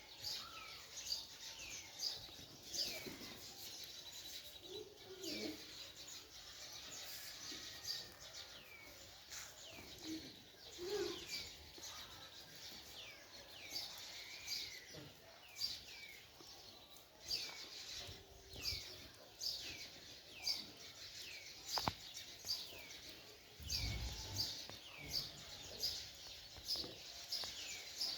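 Small birds chirping over and over, each chirp a short call sliding down in pitch, several overlapping at times. A single sharp click about three-quarters of the way in.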